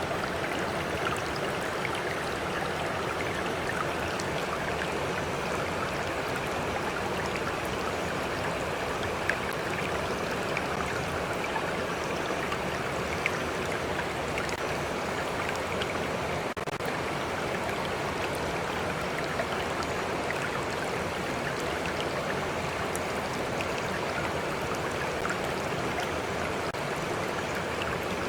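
Stream flowing steadily: an even rush of running water with a few small splashes and drips.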